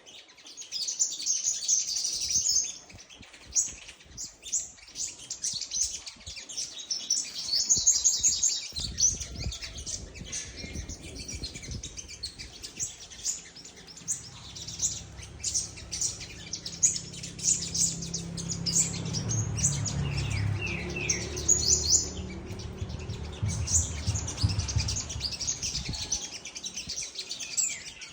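A small bird chirping and twittering in quick high trills, with short pauses between runs. A low steady rumble runs underneath from about nine seconds in until near the end.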